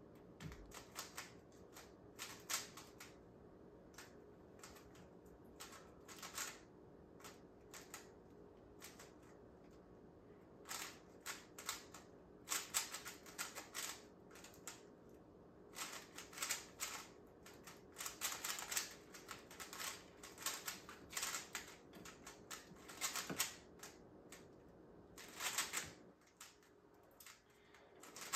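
A 3x3 speedcube being turned rapidly during a timed solve: plastic layers clicking and clacking in quick irregular bursts separated by short pauses, busier in the second half.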